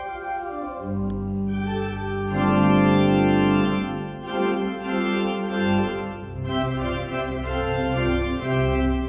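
Organ playing slow, sustained chords over a bass line, the chords changing every second or so.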